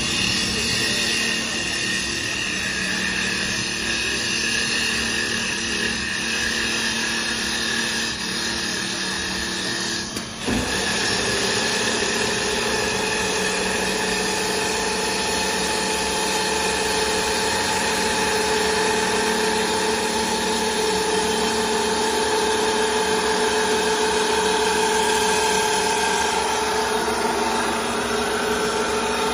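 CNC wood lathe running, its electric motors whining steadily over the hiss of the sanding wheel working a turning wooden blank. The sound breaks off briefly about ten seconds in, and afterwards one whine slowly rises in pitch.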